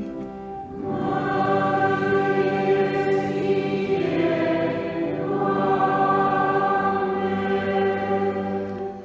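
Choir singing a short liturgical response in two slow phrases of held chords. It is the sung acclamation that answers the announcement of the Gospel reading.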